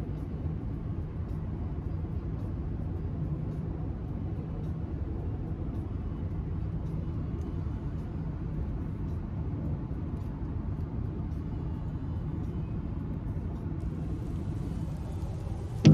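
Steady low rumble of a car being driven, road and engine noise heard from inside the cabin.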